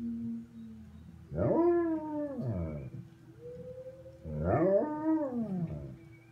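German shepherd howling twice, each a drawn-out pitched call that rises quickly and then slides down over about a second and a half.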